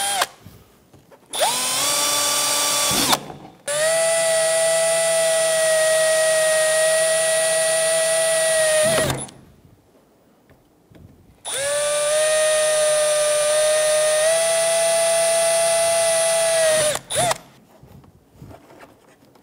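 Power drill drilling out the old plastic rivets that hold a car's interior door handle, running in three bursts: a short one about a second in, then two of about five seconds each with a pause between. Each burst spins up at the start and winds down at the end.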